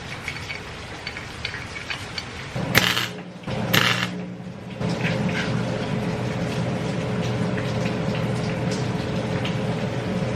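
An arc welder tack-welding the cracked steering-knuckle pieces of a truck back together. There are two short, loud crackling bursts about three and four seconds in, then a steady buzzing weld from about five seconds on.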